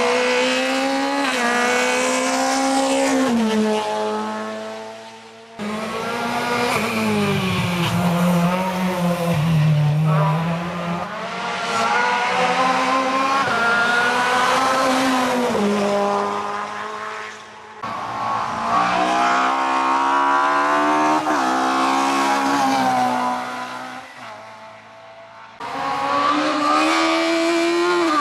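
Hillclimb race cars passing one after another, among them a Renault Clio and modified Volkswagens, each engine revving hard and rising in pitch, then dropping sharply at gear changes or lifts through a hairpin. The sound jumps abruptly from one car to the next about three times.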